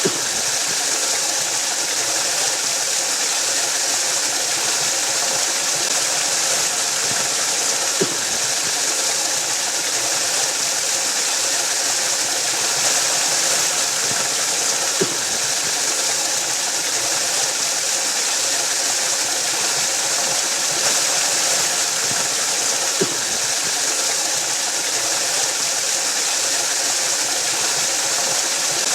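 Waterfall rushing in a steady, unbroken hiss, with three faint short clicks spread through it.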